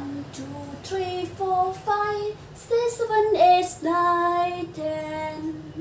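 A woman singing a short tune unaccompanied: a string of held notes stepping up and down, with short breaks between them.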